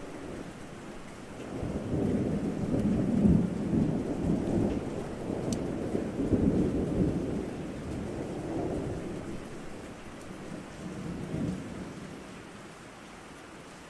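Rolling thunder over steady rain: a low rumble swells about a second and a half in, is loudest through the middle and dies away near the end, with the hiss of rain throughout.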